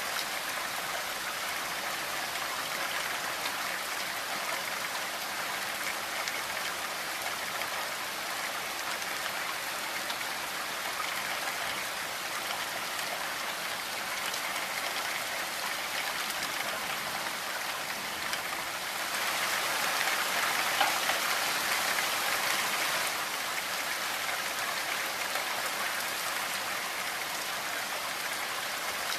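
Steady rain falling on a window and roof, a dense even patter of drops. It grows louder for about four seconds past the middle, then settles back.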